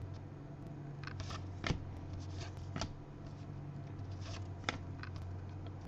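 Thick-stock baseball trading cards being slid off a stack and flipped one by one by hand, giving several short papery flicks and snaps at uneven intervals over a low steady hum.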